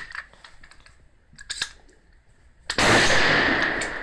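A few faint sharp clicks, then a single AR-15 rifle shot about three seconds in, very loud and ringing out for over a second.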